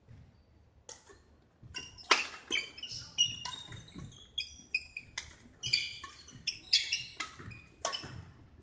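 Badminton rally: sneakers squeaking on a wooden sports-hall floor and rackets striking the shuttlecock, starting about two seconds in after a quiet moment.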